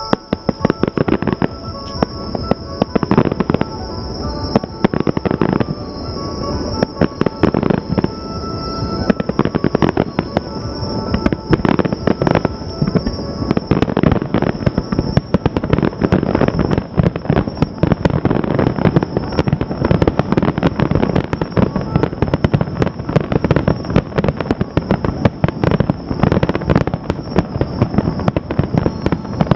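Fireworks finale: a dense, continuous barrage of shells bursting, with rapid bangs and crackles overlapping, growing fuller about halfway through.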